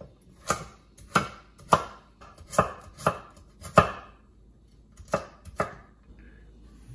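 Chef's knife chopping a pale carrot on a wooden cutting board: about eight sharp chops, the last two after a brief pause.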